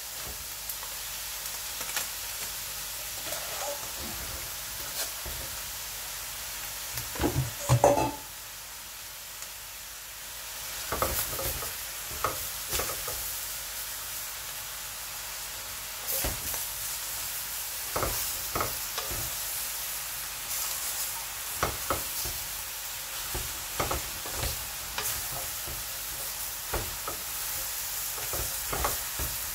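Leafy greens sizzling as they stir-fry in a hot wok, with the scrape and knock of a wooden spatula turning them. A louder clatter comes about seven to eight seconds in, and from about eleven seconds on the stir strokes come roughly once a second.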